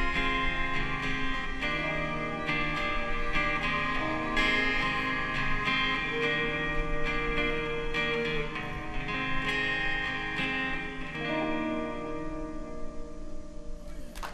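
Acoustic jazz trio playing live: two acoustic guitars picking and strumming, with a violin playing long held notes over them.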